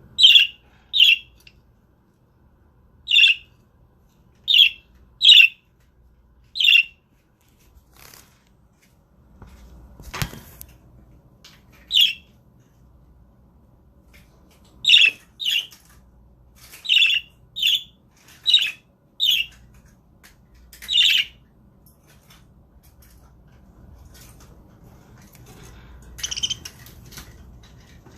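Budgerigars giving short single chirps, about twenty of them spaced unevenly with pauses between, and a soft knock about ten seconds in.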